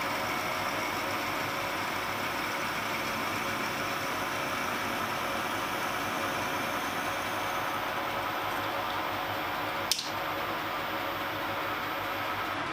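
Metal lathe running steadily while a twist drill bores through a bronze pin, with the whirr of the machine and the cutting. A single sharp click about ten seconds in.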